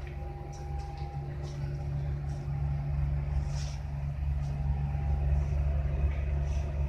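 Steady low drone of a Ro-Ro passenger ferry's engines and machinery, heard inside the passenger lounge and growing slowly louder.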